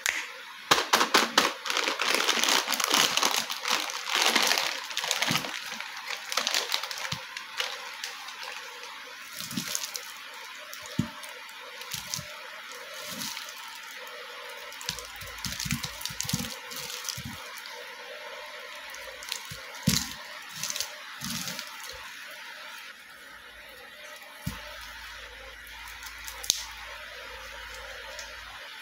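A plastic lollipop packet crinkling and crackling loudly as hands squeeze and open it for the first several seconds. Then softer rustling of the lollipops' plastic wrappers, with scattered light clicks and taps as the lollipops are handled and set down.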